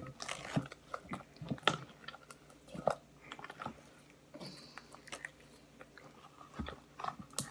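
Homemade glue slime being kneaded and squished by hand with bits of toilet paper mixed in: irregular wet clicks and crackles.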